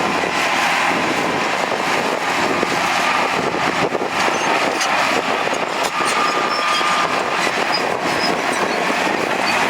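Heavy earthmoving machinery working, its diesel engine running steadily under load, with scattered short high-pitched squeaks.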